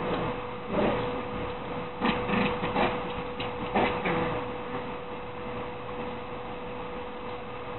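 Toy poodle puppy scuffling on a vinyl floor as it tussles with a man's hand, in a few short bursts in the first half, over a steady electrical hum.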